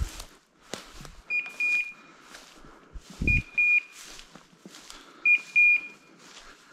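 A hunting dog's beeper collar on a pointer sounding three pairs of short, high beeps about two seconds apart. Such a repeating signal is what a beeper gives when the dog stands still on point. Footsteps rustle through dry brush underneath.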